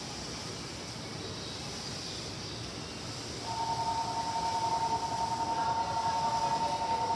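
Steady hiss of rain, then about three and a half seconds in a railway station's electronic warning signal starts: two steady tones together, pulsing rapidly, sounding for about four seconds.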